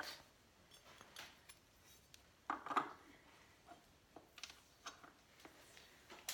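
Faint, scattered clicks and clinks of small metal parts and tools being handled, with a slightly louder clatter about two and a half seconds in.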